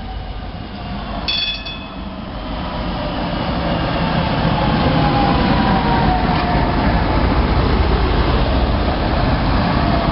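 Historic Tatra KT4D tram passing close by on its rails, the rumble of its wheels swelling as it goes past, with a slowly falling whine in the middle. A short bell ring sounds about a second in.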